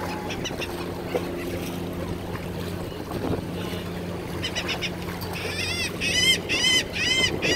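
A steady low motor drone, then a bird calling over and over: a fast run of short, arched calls about two a second, starting about two-thirds of the way in and getting louder.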